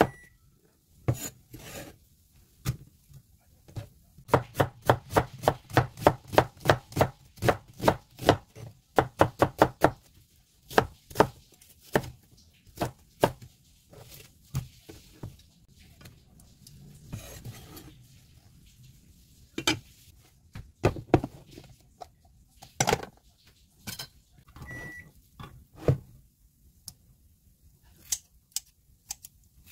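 Kitchen knife chopping green onion and onion on a wooden cutting board: a quick, even run of strokes, about four a second, in the first third, then scattered knocks and rustles as the sliced vegetables are handled and moved into a pan.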